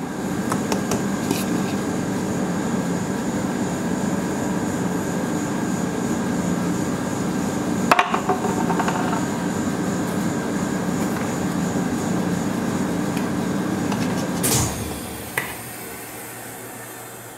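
Steady hum of a rolled-ice-cream cold-plate machine's refrigeration running, with a short clatter of metal utensils on the steel plate about halfway through. Near the end the hum drops away to a quieter hiss, followed by a single click.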